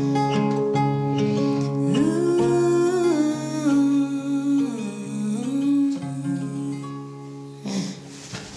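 Acoustic guitar and a woman humming a wordless, gliding melody over it, the closing bars of a country ballad; the guitar fades out near the end.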